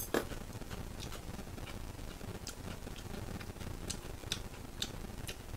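Pork belly sizzling on an electric grill pan, with irregular sharp pops and crackles of spattering fat, and a single louder clack just after the start.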